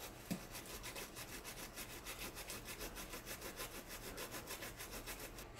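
Rapid, regular scrubbing strokes on a small circuit board, cleaning solder flux off fresh joints with alcohol.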